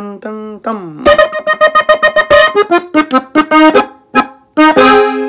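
Gabbanelli button accordion in F playing an ornament in E-flat: a quick run of short, rapidly repeated notes, ending on a held chord near the end.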